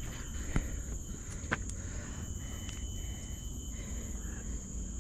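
Steady high-pitched chorus of insects, a continuous shrill drone, with two sharp clicks about half a second and a second and a half in.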